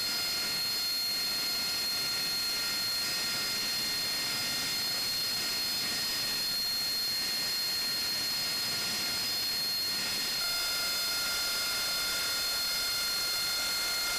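Steady jet turbine whine and rush of airfield noise, several high tones held over a constant hiss, with a slight shift in the whine about ten seconds in.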